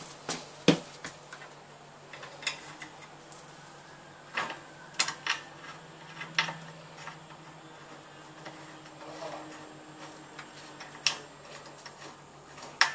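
Small steel nuts clicking and tapping against the threaded studs and metal flange plate of an electric water heater's heating-element mount as they are fitted by hand: scattered sharp clicks, the loudest about a second in, around five seconds in, and near the end.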